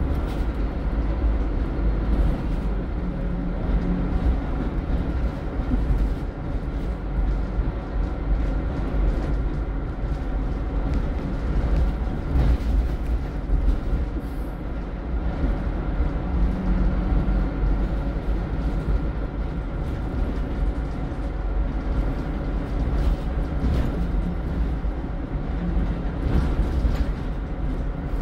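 Interior of a Scania single-decker bus on the move: the rear-mounted diesel engine running with a deep, steady rumble, the engine note shifting a few times, over road noise and light rattles from the cabin.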